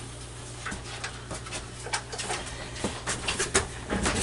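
Scattered light knocks, clicks and rattles from glass sliding shower doors and their metal track being carried by hand, busier in the second half, over a steady low hum.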